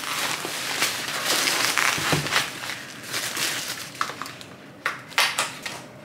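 Shopping bag and plastic-wrapped groceries rustling and crinkling as they are unpacked by hand, dense for the first few seconds and then thinning to a few separate crinkles and taps.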